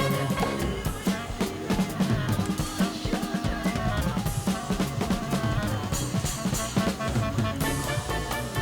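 Background music with a busy drum-kit beat, snare and bass drum, over held instrumental notes.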